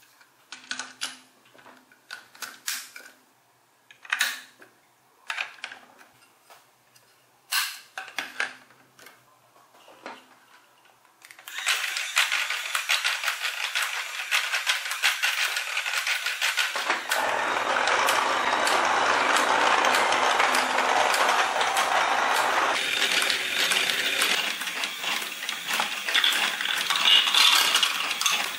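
Plastic building blocks clicking and knocking as the parts of a toy excavator are fitted together. About a third of the way in, this gives way to a continuous, dense plastic rattle that lasts to the end.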